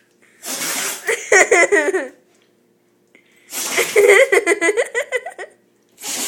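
Rottweiler sneezing twice, each sharp sneeze followed by a person's choppy laughter.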